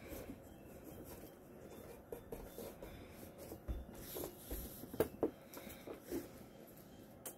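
Faint scraping and rubbing of a rope cat wand with a small plush Santa toy dragged over painted wooden floorboards, with a few short taps and clicks about four to six seconds in as a cat bats at the toy.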